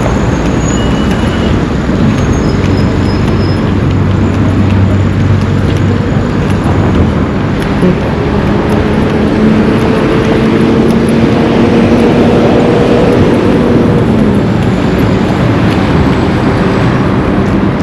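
Road traffic running steadily on a highway, with cars and larger vehicles passing close. Midway through, one engine note climbs slowly for several seconds, then drops away.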